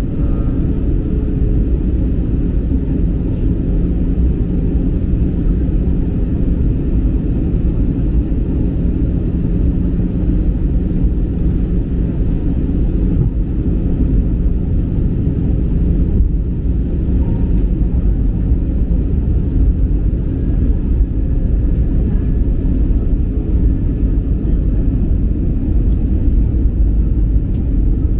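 Steady low rumble of a jet airliner's engines and rushing air, heard inside the cabin from a window seat over the wing during the approach to land.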